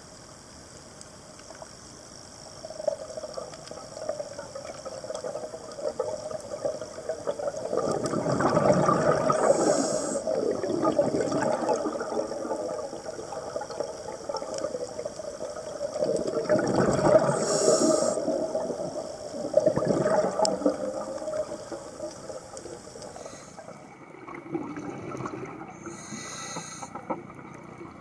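Scuba diver breathing through a regulator underwater: exhaled bubbles rush out in three long surges, and short hisses of inhaling come through the regulator. A steady hum runs underneath.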